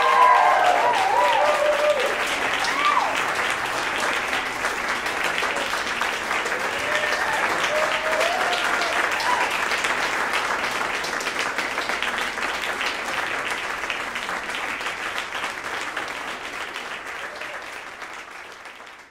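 Audience applauding, with a few cheering calls in the first seconds and again midway; the clapping thins out and fades near the end.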